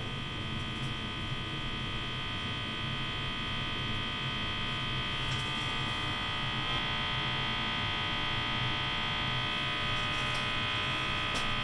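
Hum from the speaker of a 1947 Mantola R-654-PM tube radio on its first power-up after recapping, fed from a Variac as the line voltage is raised toward 100 volts. A steady buzzing hum with many overtones, growing slightly louder.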